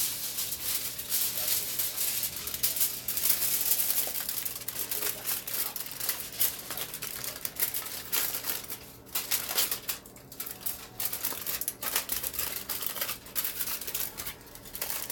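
Aluminium foil crinkling as it is handled and folded in the hands: a dense crackle with a few brief pauses in the second half.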